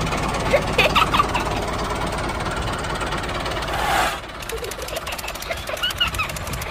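Tractor engine sound for a miniature Massey Ferguson 385 pulling a cultivator through sand, running steadily with a knocking chug. About four seconds in it drops in level and a fast, even ticking joins it.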